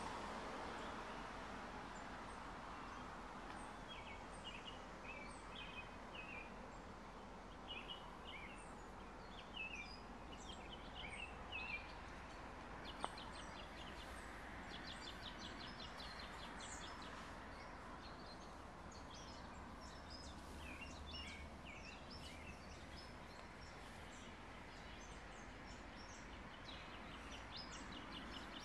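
Several birds chirping and trilling over a steady low outdoor background hum, with one sharp click about thirteen seconds in.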